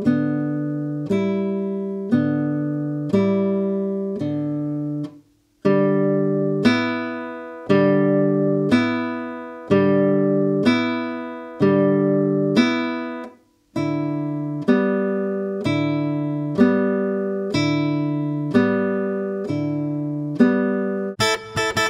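Nylon-string classical guitar, two strings plucked together with the right-hand fingers, about one pair a second, alternating between two string pairs; each pair is damped as the next is plucked, the fingers landing back on the strings just played. The playing stops briefly twice as the finger combination changes, and a faster run of notes starts just before the end.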